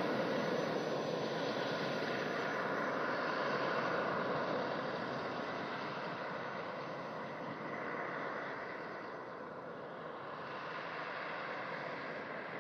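Gas turbine engine of the 1968 Lotus Type 56 Indy car running: a steady jet-like rush with a faint high whine, fading as the car drives away, with a brief swell about eight seconds in.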